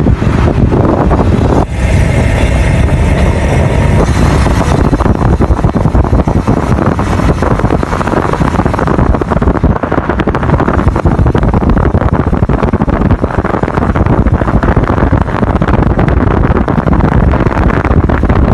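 A Suzuki vehicle driving, heard from inside the cabin: a steady, loud rumble of engine and road noise, a little brighter for a few seconds near the start.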